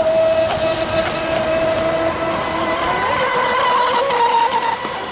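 Radio-controlled speedboat's motor running flat out at a steady high pitch, the pitch rising about three seconds in.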